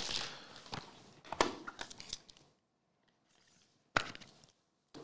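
Light handling of trading cards on a table: a few soft clicks and rustles, then a single sharp knock about four seconds in as a card or card holder is set down.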